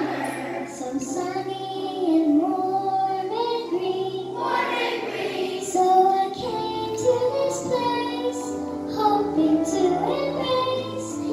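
Children singing a song together with instrumental accompaniment.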